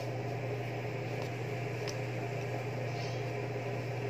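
Gas stove burner hissing steadily under a covered aluminium pot, with a steady low hum that comes in at the very start.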